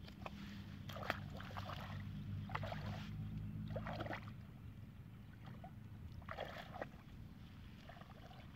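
Feet wading through shallow, muddy water, sloshing and splashing in about four separate bursts, spread over the first seven seconds.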